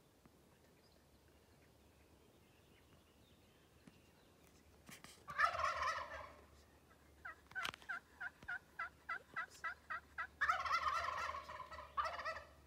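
Turkey gobbling about five seconds in, then a run of about a dozen short, evenly spaced calls at about four a second, then a second, longer gobble near the end.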